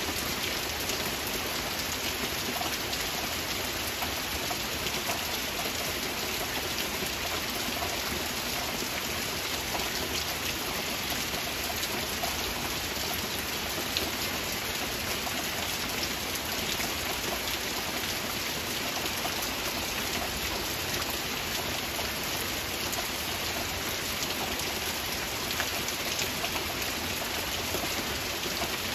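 Heavy rain falling steadily: an even hiss dense with the ticks of individual drops, with no swells or breaks.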